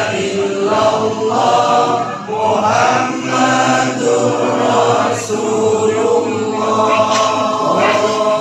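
A large group of men chanting Islamic dzikir together in unison, a continuous sung recitation of many voices.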